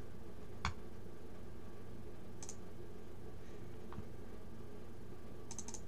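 A few computer mouse clicks: the first and loudest about half a second in, then fainter ticks, over a steady low hum.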